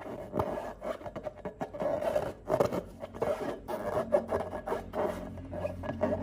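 Slime being mixed and worked: a dense, irregular run of crackly scraping and rubbing sounds.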